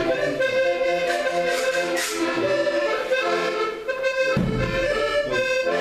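Instrumental music of held melody notes and chords, with a low rumble under it about four seconds in.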